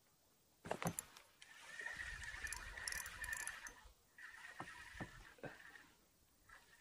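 Feeder rod picked up with a couple of sharp knocks, then its spinning reel wound in two spells, a whirring with a steady high tone and a few light knocks between: line being reeled in after a bite.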